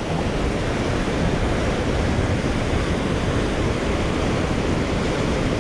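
Steady rushing of river water pouring over a low dam's spillway.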